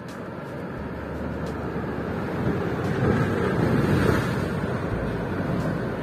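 Ocean waves breaking and washing over black lava rocks: a steady rushing surf that swells to its loudest about three to four seconds in, then eases.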